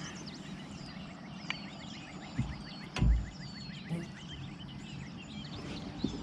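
Birds singing: repeated short falling whistled notes and a fast ticking trill, with two dull thumps about two and a half and three seconds in.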